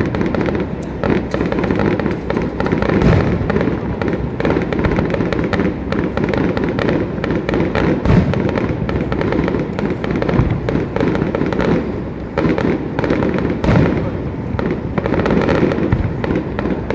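Fireworks display: a dense, unbroken barrage of bursts and crackling, with a few heavier booms standing out.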